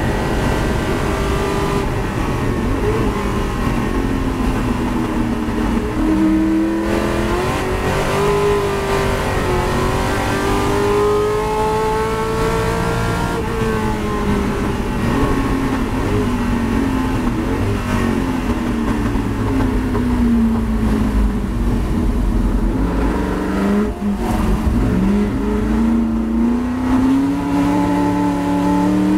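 Ford GT40's V8 heard from inside the cockpit at racing speed. The engine pitch climbs and holds under full throttle, then falls steadily as the car brakes hard for a slow chicane, with a dip near the slowest point, and rises again as it accelerates out.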